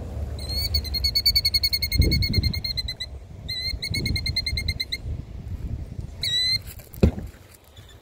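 Killdeer giving its rapid trilling alarm call in two long runs and a short burst near the end, the sound of a parent bird defending its egg. Under it runs a low rumble, with a thump about 7 seconds in.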